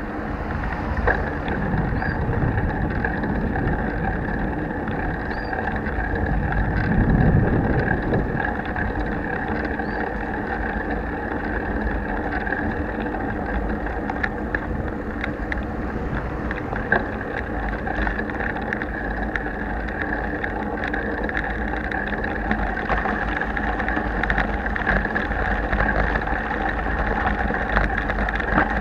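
Wind and road rumble of a moving bicycle, picked up by an action camera fixed to the handlebar without its protective housing: a steady noise with occasional small clicks and rattles, swelling louder about seven seconds in.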